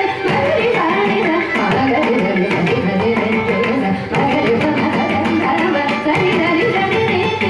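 Carnatic classical performance in raga Arabhi: a female voice singing with violin accompaniment, over a steady rhythm of mridangam and ghatam strokes.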